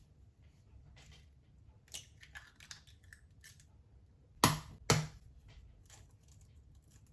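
Kitchen handling sounds: scattered light clicks and rustling, then two sharp knocks about half a second apart, roughly four and a half seconds in.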